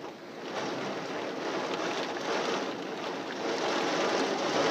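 Heavy rain and strong wind gusts of a severe thunderstorm: a dense rushing noise that swells and eases in waves, loudest near the end.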